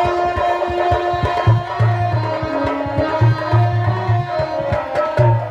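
Harmonium and hand drums playing live instrumental accompaniment: held reed notes over a quick run of drum strokes, with repeated low bass strokes that ring on briefly.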